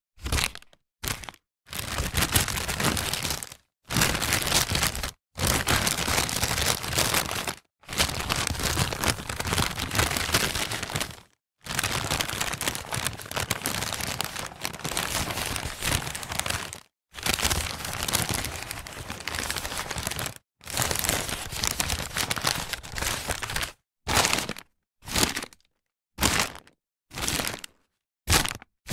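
Paper bag being handled: crackling, crinkling and crumpling of stiff paper in separate takes broken by silent gaps, several lasting a few seconds, with shorter, quicker bursts near the end.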